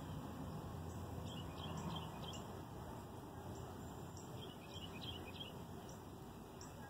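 Small birds chirping in short, quickly repeated high notes over steady low background noise.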